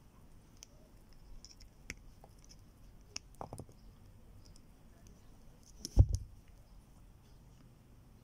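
Small clicks and scrapes of pliers working a twisted splice of solid copper wire, with a few sharper clicks a little after three seconds in and a dull thump about six seconds in.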